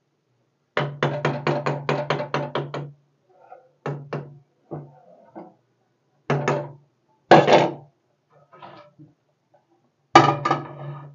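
A steel ladle and lid knocking against a steel kadai: a quick run of about ten knocks in two seconds, then scattered single knocks, and a louder clatter near the end as the lid is set on.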